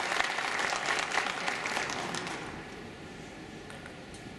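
Audience applauding, dying away about two and a half seconds in.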